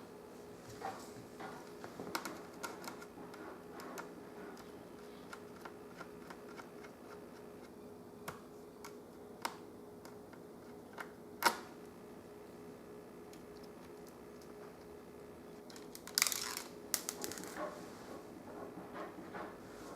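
Small scattered clicks and taps of a screwdriver working the screws of a laptop's screen assembly and of hands handling the laptop's plastic parts, with one sharp click about halfway through and a quick run of clicks later on, over a faint steady hum.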